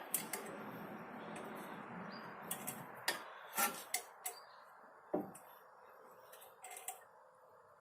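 Irregular light metallic clicks and taps from tools on a front brake caliper as its piston is pushed back in, over a soft hiss that fades out about five seconds in.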